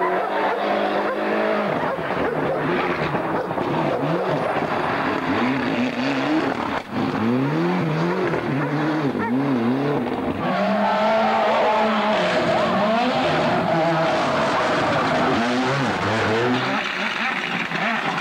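Ford Escort Cosworth Group A rally cars' turbocharged 2.0-litre four-cylinder engines revving hard, the revs climbing and dropping sharply again and again through gear changes and lifts as the cars pass one after another.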